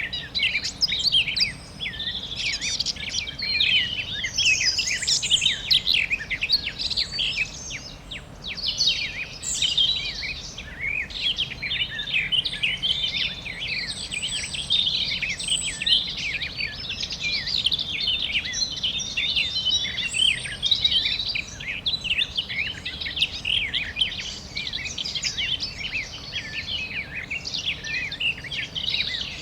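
Many songbirds chirping and calling over one another, a dense and continuous chorus of short high chirps and trills, over a faint steady background hiss.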